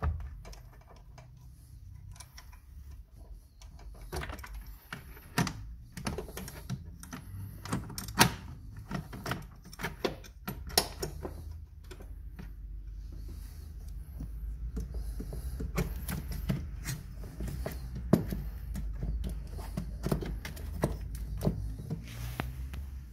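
Irregular clicks, taps and knocks of hands and metal tools working on a car battery and its terminal clamps, over a low steady rumble.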